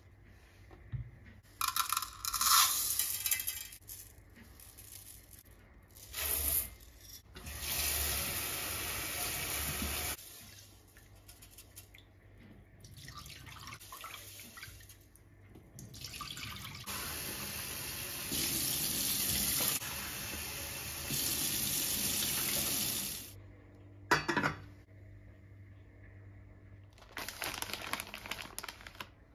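Kitchen tap running in several spells into a stainless steel sink, water splashing as lettuce and then rice in a rice cooker's inner pot are rinsed by hand. A short knock follows the last spell.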